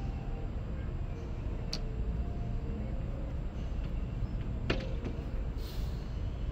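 City street ambience: a steady low rumble of distant traffic, with two sharp clicks about two and five seconds in and a brief hiss near the end.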